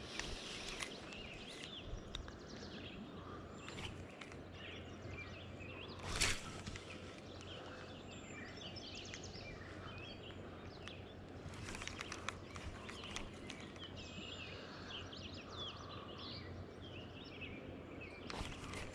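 Wild birds chirping and singing on and off over a steady background hiss of the outdoors, with a brief thump about six seconds in.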